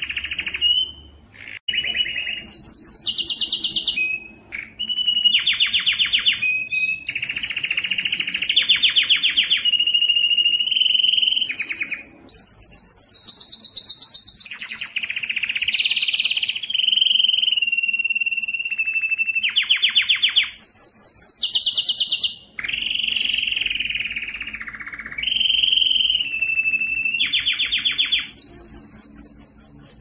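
Canary singing a long song of rolling trills, fast runs of repeated notes, and held whistled notes, changing phrase every second or two with a few short breaks.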